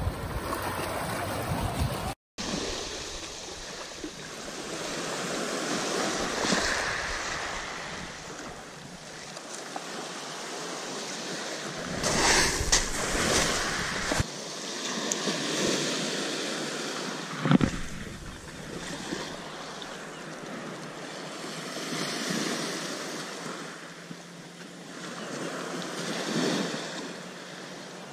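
Small waves breaking and washing on a shingle beach, rising and falling as each one comes in, with wind buffeting the microphone.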